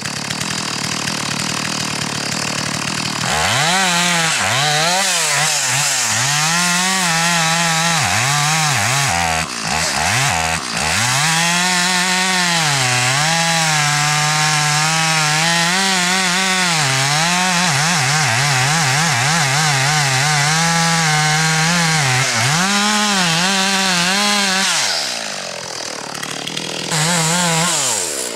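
Two-stroke chainsaw cutting into the base of a large tree at full throttle, its pitch sagging and recovering as the chain loads up in the wood. There are two brief dips about ten seconds in. Near the end the saw drops off throttle, revs up once more briefly, then falls away again.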